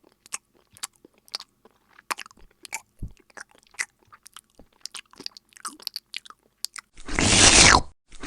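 Crisp crunching and chewing, short scattered clicks for about seven seconds. Near the end, a loud rushing sound effect with a falling pitch lasts about a second and starts again just before the end.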